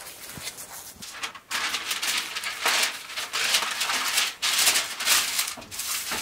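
Baking paper crinkling and rustling as it is pressed and smoothed into a baking tray by hand, in a run of bursts starting about a second and a half in.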